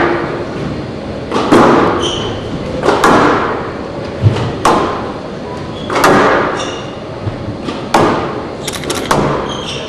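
A squash rally: the ball smacks sharply off the racquets and the court walls about every second and a half, each hit echoing in the court. Short squeaks from court shoes on the floor come between the hits.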